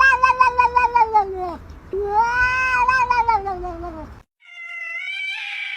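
A cat yowling: two long drawn-out wails, each rising and then falling in pitch. After a sudden break about four seconds in, a higher, steadier drawn-out cry begins.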